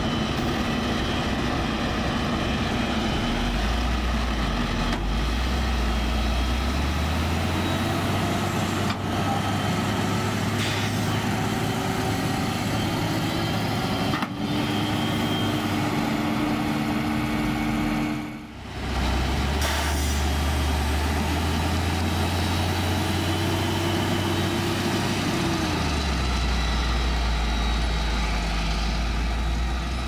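Claas Jaguar 970 self-propelled forage harvester running under load while chopping maize: a steady, loud engine and cutterhead drone with a low rumble that shifts in pitch, mixed with a truck's engine running alongside. The level dips briefly a little past halfway.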